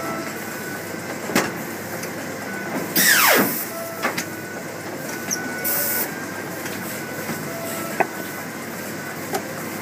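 Polar 137 Autotrim guillotine paper cutter running through a cutting cycle: a steady machine hum with sharp clicks, and about three seconds in a loud burst of hiss with a falling whine, then a shorter hiss near six seconds.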